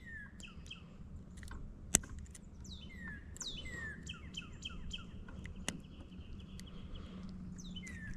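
A songbird singing: repeated down-slurred whistled notes and quick runs of even chips. Two sharp clicks, about two seconds in and again near six seconds, cut across the song.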